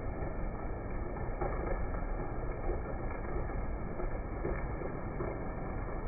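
Heavy rain falling steadily: a dense, even wash of noise with a strong low rumble and a few brief brighter splashes. It sounds muffled, with no high, crisp hiss.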